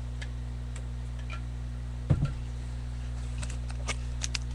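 Trading cards being handled and flipped, making faint scattered clicks, with a soft low thump about two seconds in, over a steady electrical hum.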